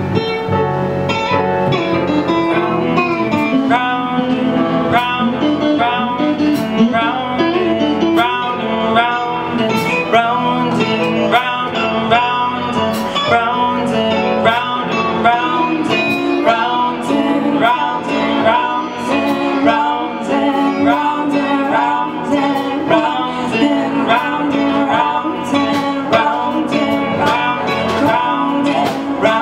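A live band playing a song, with electric guitars, drums and a lead singer.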